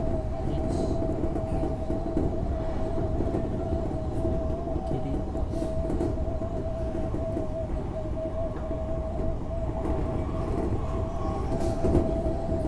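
Odakyu 8000 series electric train (renewed set 8564) running at a steady speed, heard from inside the front car. There is a continuous rolling rumble and a steady whine that holds one pitch.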